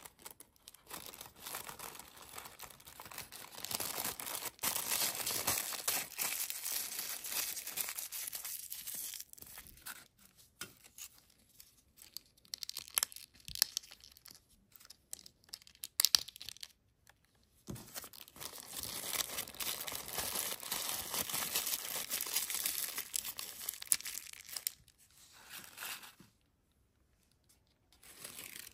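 Tissue paper crinkling and rustling as it is handled and folded, with a few sharp clicks of small plastic pieces in the middle stretch. The rustling stops a couple of seconds before the end.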